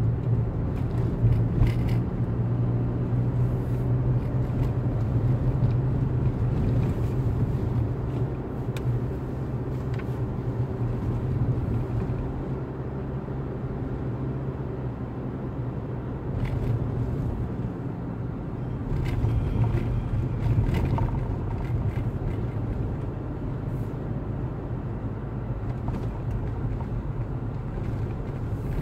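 A car's engine and tyres running on a moving car, heard inside the cabin: a steady low hum over road noise. The hum eases about halfway through and strengthens again about two-thirds of the way in.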